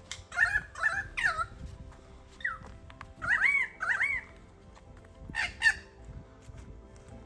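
A bird calling in four short phrases of loud, rising-and-falling whistled notes, with pauses between them. Faint background music runs underneath.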